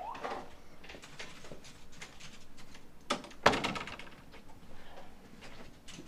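Footsteps, then a wooden door with an overhead closer swinging shut and hitting its frame with a loud thud about three and a half seconds in, just after a smaller knock.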